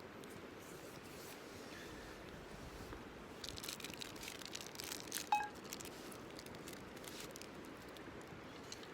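Crinkling, crackling handling noises over a faint steady background, with one short ringing metal clink about five seconds in, like a utensil or cookware being knocked.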